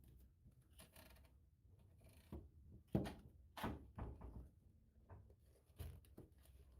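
A few faint, irregular knocks and thumps in a quiet room, the loudest about three seconds in, with several smaller ones over the following second or so.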